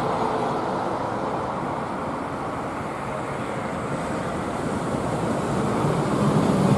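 A train running past, a steady rush of running noise that grows louder toward the end.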